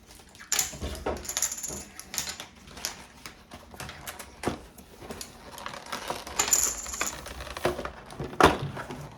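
Packaging of a Pokémon card collection box being opened and handled: an irregular run of clicks, crackles and short rustles of cardboard and plastic.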